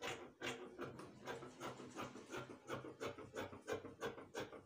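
Scissors cutting through layered fabric, a steady run of crisp snips about three a second as the excess is trimmed along a chalked pattern line.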